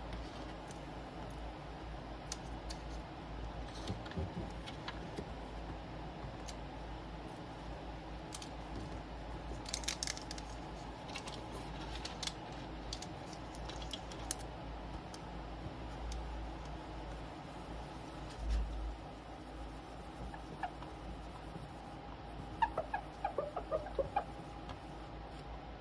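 Small scratching, rustling and clicking from hands and tools at a workbench, fitting new polarizer film to an LCD panel, over a steady faint hum. A quick run of small clicks comes near the end.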